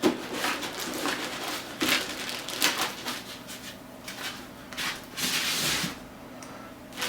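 Handling noises from a computer case and its packaging: scattered light knocks and clicks with short bursts of rustling.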